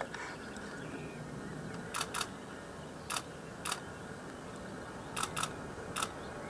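Camera shutters clicking seven times at uneven intervals, twice in quick pairs, over a steady faint background hiss.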